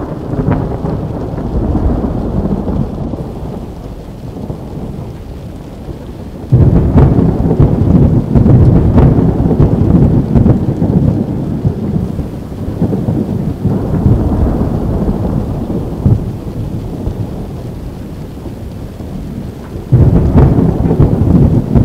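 Thunder rumbling through a thunderstorm, with two sudden loud claps, one about six and a half seconds in and one near the end, each rolling on for several seconds. Rain falls steadily underneath.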